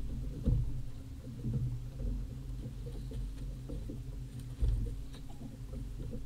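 Water lapping and slapping against a small fishing boat's hull, with a steady low rumble of wind on the microphone and a couple of heavier thumps, about half a second in and again about two-thirds through.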